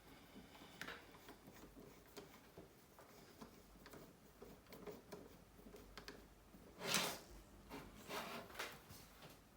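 Faint small clicks and taps of a smartphone's parts and small repair tools being handled on a desk. A brief, louder rustle comes about seven seconds in, with a few smaller ones shortly after.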